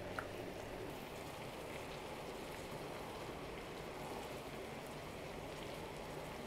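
Green beans and onions frying in a pan, a steady soft sizzle. There is a single click just after the start.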